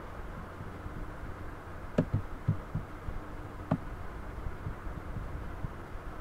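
A few short computer-mouse clicks, a sharp one about two seconds in followed by softer taps and another sharp click near the middle, over a steady low hum of room and microphone noise.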